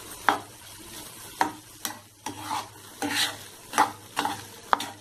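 A red plastic spatula stirring boondi curry in a nonstick pan: about nine short scrapes at uneven spacing as the coriander is mixed in.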